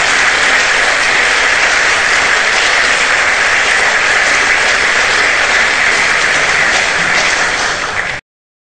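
Audience applauding, a steady dense clapping that cuts off abruptly near the end.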